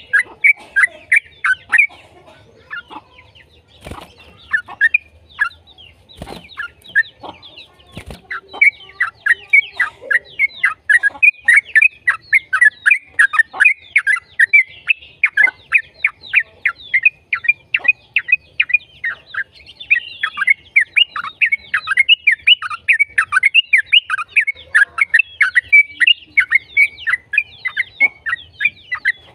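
Yellow-vented bulbul (trucukan) singing in rapid chattering phrases, sparse at first with a few sharp knocks, then about eight seconds in breaking into a long, unbroken run of quick notes: the 'ropel' song that birdkeepers play to make their own bulbuls sing back.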